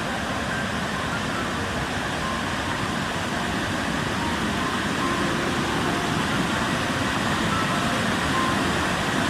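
Waterfall swollen by monsoon rain, a steady, dense rush of falling water.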